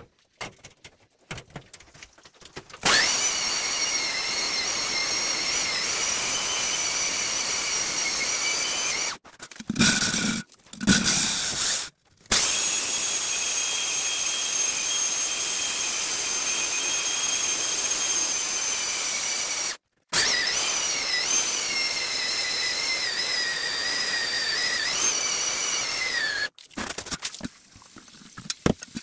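Handheld diamond core drill with a wide core bit boring into a soft stone wall: a steady high whine over grinding, its pitch wavering as the bit cuts, in three long runs broken by short pauses. Near the end the drill stops and a hand tool scrapes and clicks against the stone.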